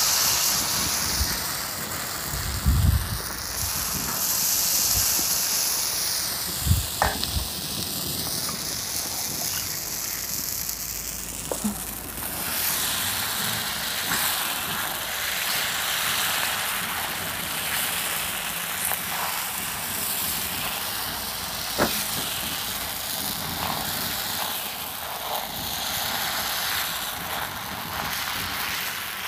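Puda batter sizzling on a hot iron tawa over a wood fire: a steady hiss, with a few sharp clicks.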